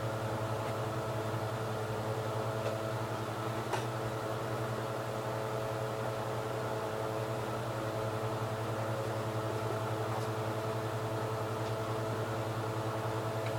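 Steady mechanical hum with several constant tones, like a fan or running appliance, with a faint click about four seconds in.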